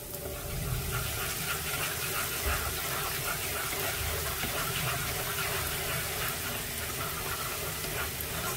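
Minced lemongrass frying in hot oil in a pan, sizzling steadily; the sizzle swells about half a second in as soy sauce hits the oil.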